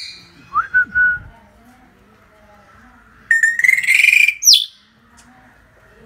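Common hill myna calling: two or three short whistles about half a second in, then a loud, harsh call from about three to nearly five seconds in that ends in a sharp rising whistle.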